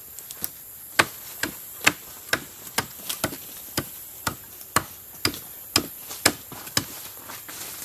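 Hatchet blows on a wooden shelter pole: about a dozen sharp knocks, roughly two a second, stopping near the end.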